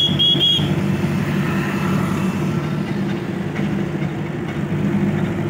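Tata Super Ace mini truck's diesel engine running steadily while the truck drives, heard from inside the cab.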